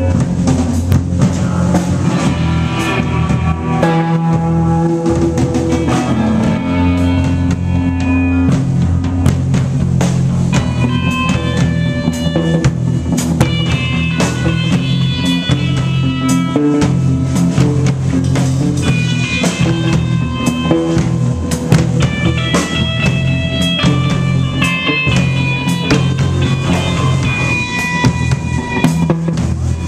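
Live band playing a song, with a drum kit keeping a steady beat under guitar.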